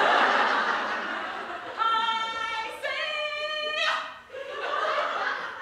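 A group of girls' voices laughing and squealing together, then one voice singing two long held high notes, the second a step higher, then another short burst of laughing voices.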